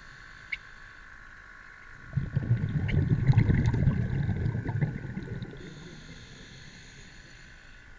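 Muffled water noise picked up by an underwater camera: a low rumble with small knocks and clicks swells suddenly about two seconds in and fades out by about five and a half seconds, over a faint steady high whine.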